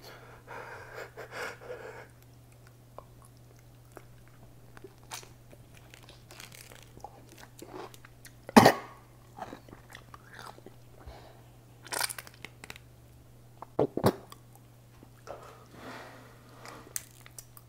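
A man chewing a crunchy pickle coated in chocolate spread, with soft crunching and mouth sounds. A few louder sudden noises come partway through, about 8 to 9 seconds in, at 12 seconds and at 14 seconds.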